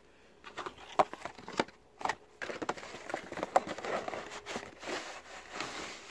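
Cardboard box of a new cabin air filter being opened and handled: a few sharp clicks and taps, then crinkling and rustling as the pleated filter is slid out of its packaging.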